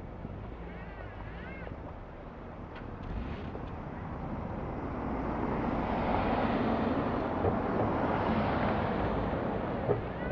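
A vehicle driving past on a slushy, snow-covered street: its tyre and engine noise builds over several seconds, then eases. A faint repeating warble is heard early on, and a sharp click comes near the end.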